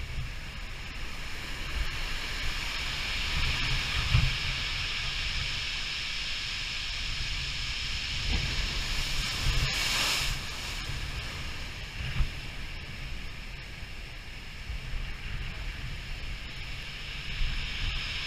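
Heavy ocean surf washing in as a steady hiss, with wind buffeting the microphone.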